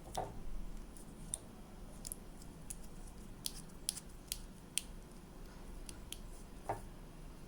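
Light clicks and taps of small plastic plug parts being handled and screwed together, about a dozen sharp ticks at irregular intervals with a couple of duller knocks.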